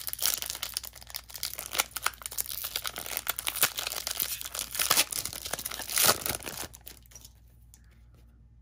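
Foil trading-card pack wrapper being torn open and crinkled by hand, a dense crackling with a louder crackle about six seconds in, stopping about seven seconds in.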